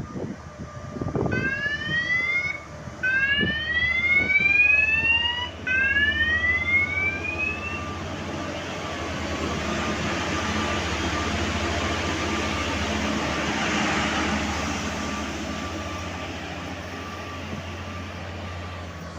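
Plasser & Theurer multiple tie tamper (MTT) track machine sounding its siren: three rising wails in a row, each cut off and restarted, over the steady drone of its engine. After the wails the machine's running noise swells and then slowly fades.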